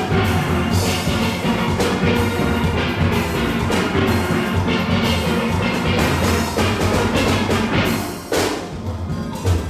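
Steel orchestra playing a tune: many steelpans struck together over a drum kit keeping the beat. The music drops back briefly about eight seconds in before picking up again.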